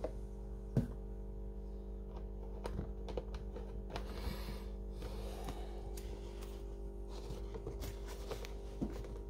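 A few light knocks and clicks, the loudest about a second in, over a steady hum. There is a short rustling swish about four seconds in.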